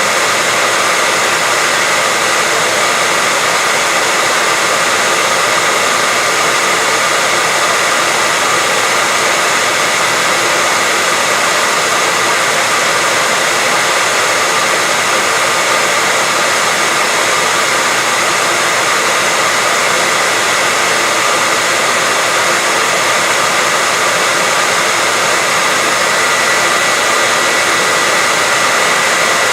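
Steady white-noise hiss with no change in level, spread across the highs with little low rumble, and a faint steady tone running through it.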